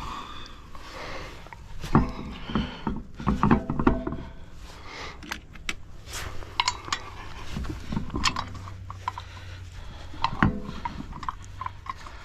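Metal clinks and knocks of lug nuts and hand tools during a roadside spare-tire change, irregular and scattered, with a few heavier knocks, over a steady low hum.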